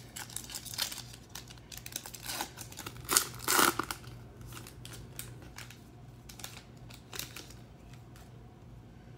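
Foil wrapper of a trading-card pack being torn open and crinkled, the loudest tearing a little over three seconds in. Fainter rustles follow as the cards are handled.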